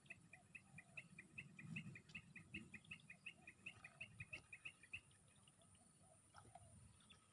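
A bird calling: a faint, rapid run of short paired high chirps, about six a second, that stops about five seconds in.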